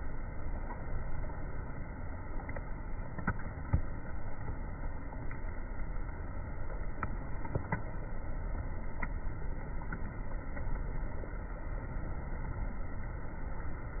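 Steady rushing noise of fast-flowing river water, with a few faint clicks.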